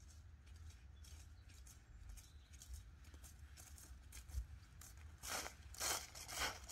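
Footsteps on grass, about two a second, starting about five seconds in and coming closer, over a faint low rumble.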